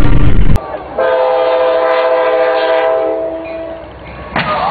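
Locomotive air horn sounding one long chord of several notes held together for about three seconds. It is preceded by a loud noise that cuts off abruptly about half a second in, and voices start near the end.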